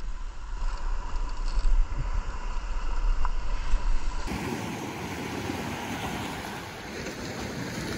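Wind buffeting the microphone over a spinning fishing reel being cranked against a hooked fish. About four seconds in, the sound cuts to steady small surf washing onto the shore.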